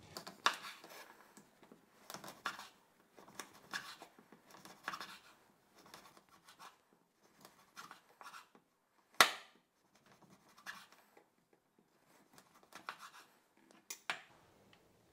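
Chef's knife slicing through dry, hard biltong on a wooden cutting board: a series of short crisp scraping cuts, roughly one every second, each stroke ending on the board. One sharp knock of the blade on the board about nine seconds in is the loudest sound.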